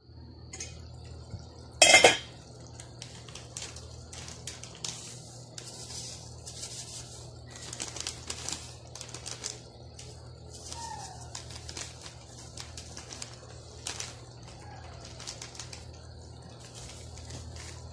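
Metal lid of an electric rice cooker lifted off and set down with a loud clank about two seconds in. Scattered light clinks and scrapes of metal cookware follow over a steady low hum.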